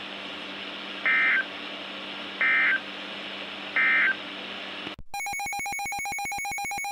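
EAS SAME data bursts, three short identical warbling beeps about a second and a half apart: the end-of-message code that closes a weather radio tornado warning, over the receiver's steady hiss and hum. After a brief cut to silence about five seconds in, a steady, rapidly pulsing electronic alert tone begins.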